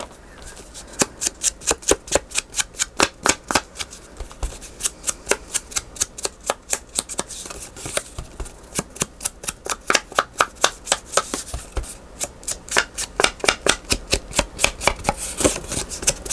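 Scissors snipping paper in short, quick cuts, about three or four snips a second, cutting a thumb-hole notch into a paper pocket.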